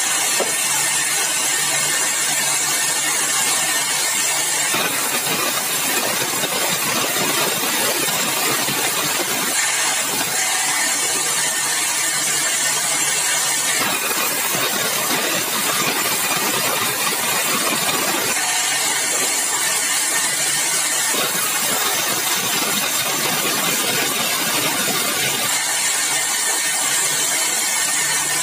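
Sawmill saw cutting yellow balau (bengkirai) hardwood. The loud, rough cutting noise comes and goes in stretches of about four seconds, between stretches where the machine runs with a steady hum and hiss.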